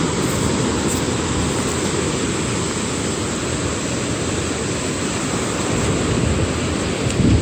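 Steady rush of ocean surf breaking on a sandy beach, mixed with wind on the microphone.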